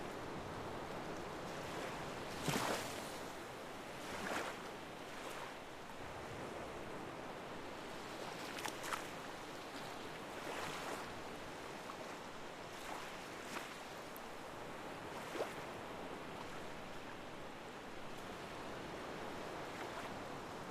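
Water washing steadily, with brief splashes every few seconds, the sharpest about two and a half seconds in.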